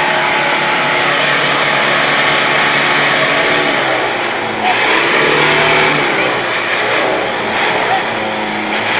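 Vehicle engines running close by, the trucks and a passing motorbike, as a steady loud mix. People's voices sound underneath.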